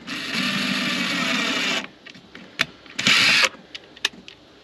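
Power drill running for nearly two seconds, boring a hole into wood paneling. A sharp click follows, then a second, shorter burst from the drill about three seconds in.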